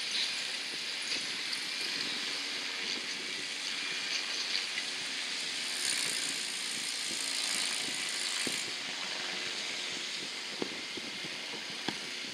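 Light piston-engined helicopter flying past: a steady engine hum under a hiss of rotor and air noise, with a couple of sharp clicks near the end.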